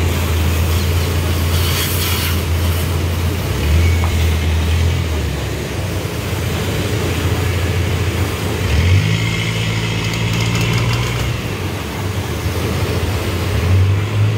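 Steady low drone of a running engine, shifting pitch about four seconds in and stepping up about nine seconds in, under the hiss of water spraying from a hose nozzle.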